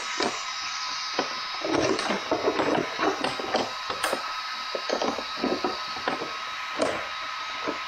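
Hard plastic parts clicking, tapping and rattling as a battery cover and its terminal caps are pushed and fitted into the battery compartment of a Honda Super Cub C125. The clicks come irregularly, several a second at times.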